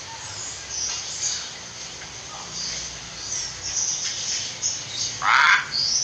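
Faint, scattered high chirps of small birds over a low steady hum. About five seconds in, a hill myna gives a short, loud call.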